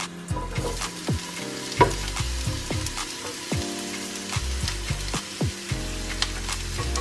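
Chopped onion, scallion and garlic sizzling as they hit hot oil in a frying pan, starting about a third of a second in, with a spatula clicking and scraping against the pan as they are stirred.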